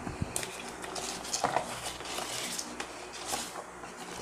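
Cardboard box and its paper insert being handled and pulled apart: a string of rustles and scrapes, loudest about one and a half seconds in.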